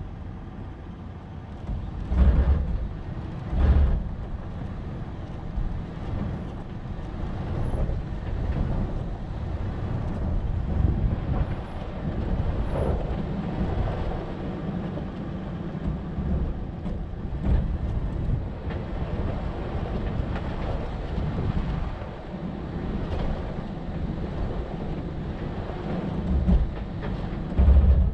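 4x4 vehicle driving along a rough dirt trail: a steady rumble of engine and running noise, with loud low thumps about two and four seconds in and again near the end.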